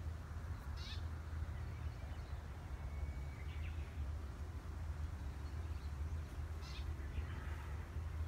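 A few short bird calls, scattered over a steady low rumble.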